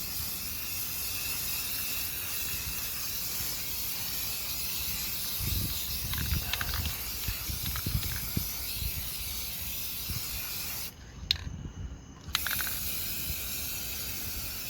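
Aerosol spray-paint can spraying in a steady hiss with the nozzle held down. The hiss stops for about a second and a half near the end as the nozzle is let go, then starts again. There are some low bumps midway.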